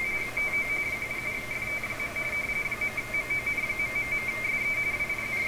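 Radioteletype (RTTY) signal from the receiver: two high, closely spaced tones keyed rapidly back and forth in a steady warble. These are the mark and space of a 45-baud Baudot transmission being copied. A faint low hum sits underneath.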